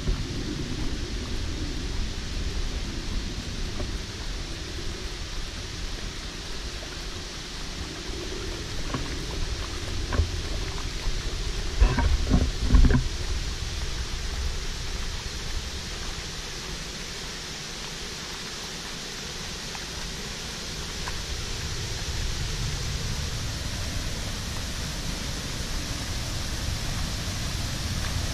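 Steady rush of water running over a concrete spillway, with a low rumble underneath. A short cluster of thumps comes about twelve seconds in.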